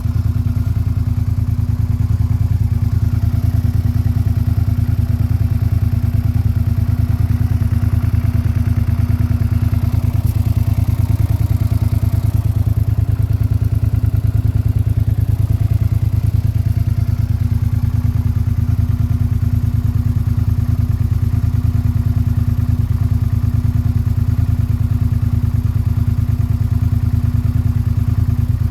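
Suzuki SV650's 90-degree V-twin engine running steadily at a constant speed, with no revving. This is its normal mechanical noise on newly replaced cam chains, free of the rattle that the worn chains made.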